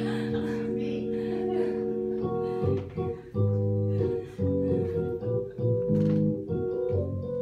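Improvised instrumental music: a chord held steady, then from about two seconds in a run of short chords changing several times a second.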